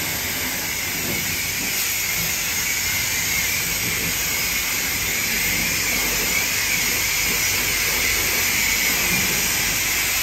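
High-pressure car-wash wand spraying water onto a soapy car body: a steady hiss of the jet against the panels.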